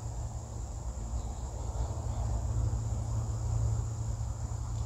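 Insects trilling in a steady high-pitched drone, over a low rumble.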